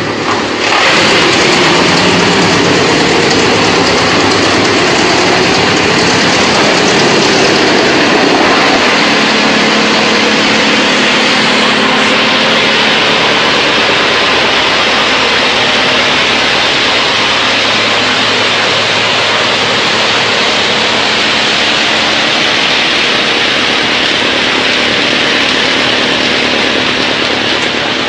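YGX218 wood chipper running loud, its electric motor and belt drive turning the cutter. The noise jumps up about a second in as a log goes into the infeed, stays uneven for several seconds while it is chipped, then settles to a steady run with a low hum.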